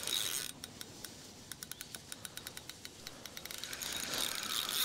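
Carp fishing reel giving a quick, irregular run of small clicks at a few per second while a hooked carp is played.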